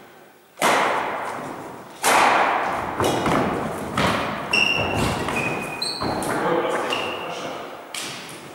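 Badminton rackets hitting a shuttlecock in a rally: a string of sharp hits, about one a second and sometimes quicker, each ringing on in the echo of a large gym. A few short high squeaks in the middle, from sneakers on the wooden floor.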